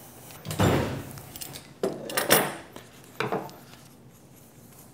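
Metal hand tools and small hardware clinking and rattling against a workbench as they are handled: three short bouts of clatter, the loudest about two seconds in.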